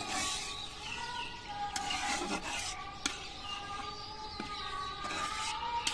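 Metal spatula stirring a simmering curry in a metal karai, scraping and clinking against the pan now and then, over a steady tone in the background.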